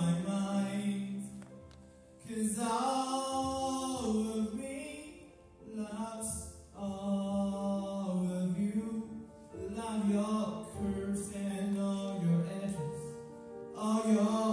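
A solo singer singing into a microphone with grand piano accompaniment: long held notes in phrases, with two short breaths between them.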